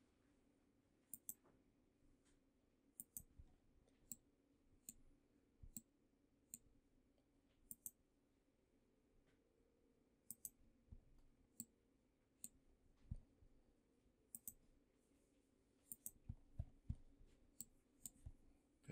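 Computer mouse clicking at an irregular pace, about one click a second, many as a quick double tick, over a faint steady low hum.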